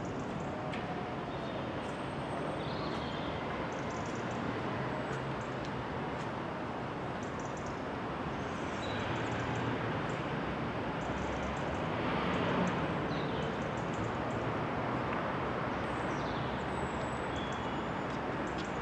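Small birds chirping and tweeting on and off over a steady background rumble of distant city and railway noise.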